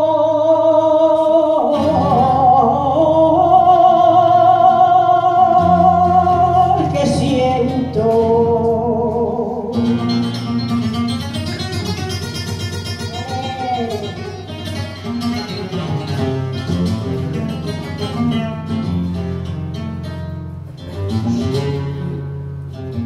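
Flamenco song: a woman sings long, wavering held notes over an acoustic guitar accompaniment, and from about ten seconds in the guitar carries on playing with the voice mostly dropped out.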